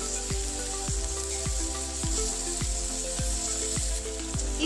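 Sliced onions and round gourds (tinda) frying in hot oil with ground spices in a kadhai, a steady sizzle, under soft background music with a steady low beat.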